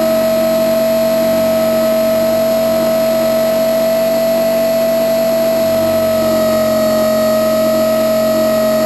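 Blade 450 X electric radio-controlled helicopter in flight, heard from a camera mounted on its own frame: the brushless motor and rotor head give a loud, steady whine. The pitch rises slightly partway through and eases back near the end.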